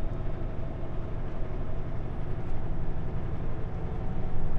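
Kenworth W900L semi-truck's diesel engine running, a steady low drone with road and cab noise around it.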